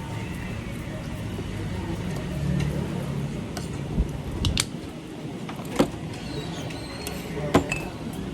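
A few sharp clinks and taps of tableware and condiment bottles on a table over a steady low background rumble. The loudest clinks come in the middle and near the end.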